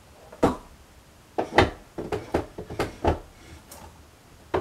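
Objects being picked up and moved about, giving a series of about seven short, sharp knocks and clatters spaced roughly half a second to a second apart.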